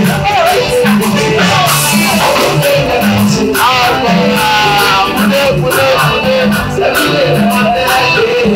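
Upbeat music with guitar, a steady beat and singing.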